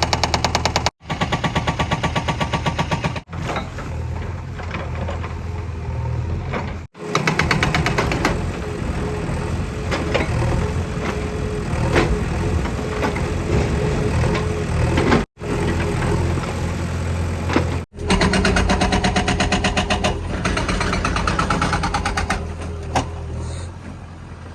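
JCB 3DX backhoe loader's diesel engine running hard, with a steady hydraulic whine in the middle stretch and scattered knocks and clunks. The sound drops out abruptly for a moment several times.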